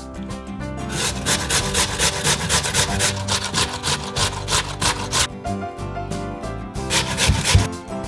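Raw potato being grated on a stainless steel box grater: quick, even rasping strokes for about four seconds, then a shorter run near the end.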